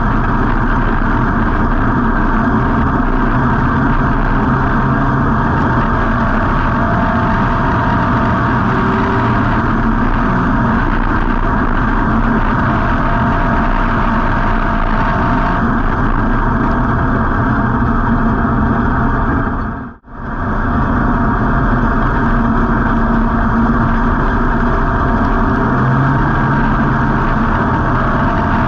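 WISSOTA street stock's V8 engine running loud and steady, heard from inside the car with the wind and chassis noise of the race car on the track. About two-thirds of the way through, the sound drops out for an instant and comes straight back.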